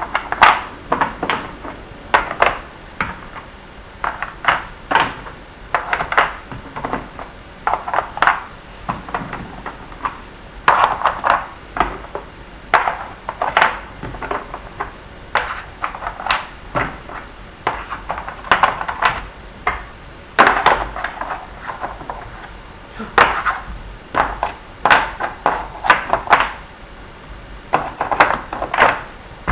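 Wooden test blocks clacking as they are picked up and set one by one into the slots of a Minnesota Spatial Relations Test formboard: a steady run of short, sharp knocks, singly and in quick clusters, about one to two a second.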